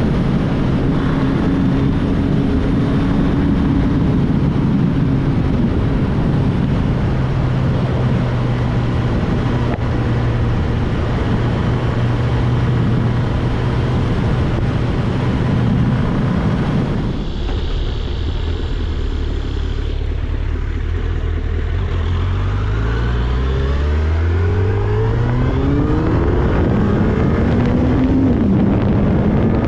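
Suzuki Hayabusa's stock inline-four engine under heavy wind rush at speed. It holds a steady drone for over half the time, then the engine note falls away. About two-thirds in it climbs steadily in pitch as the bike accelerates, dipping briefly and rising again near the end.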